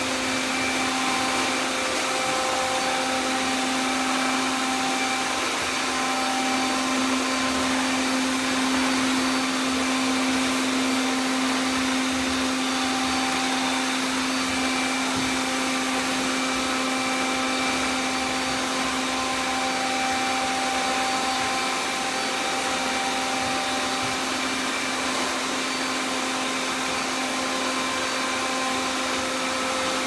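Many robot vacuums running at once: a steady, unbroken whir of hiss with several steady hum tones layered together.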